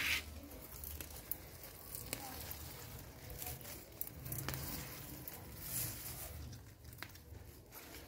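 Pepper plant leaves and stems rustling and crinkling as hands handle them, with scattered small clicks and a louder rustle right at the start.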